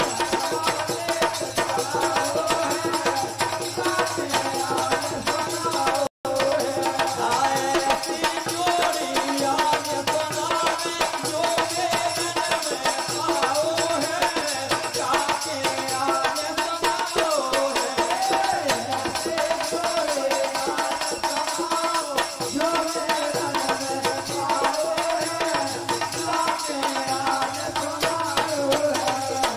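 Instrumental folk-devotional music playing: a wavering melody line over a steady hand-drum beat with rattling percussion. The sound cuts out for an instant about six seconds in.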